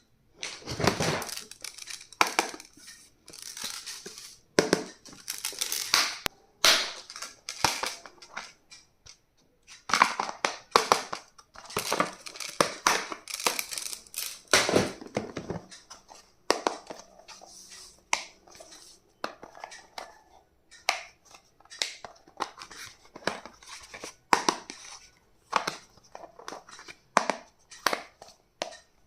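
Packaging being handled and unwrapped: crinkling, rustling and crushing in irregular bursts, with small knocks of items being handled.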